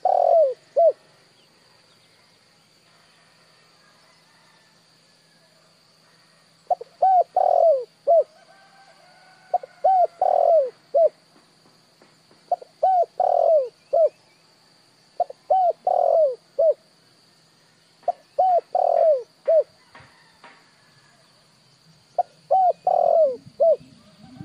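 Spotted dove cooing: short phrases of three or four coos repeated every two to three seconds, after a pause of several seconds near the start.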